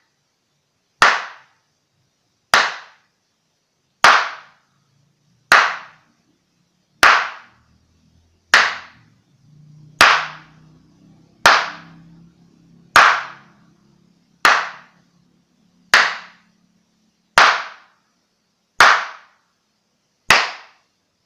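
A pair of slippers clapped together, sole against sole, one sharp clap about every second and a half, fourteen in all, each with a short echoing tail.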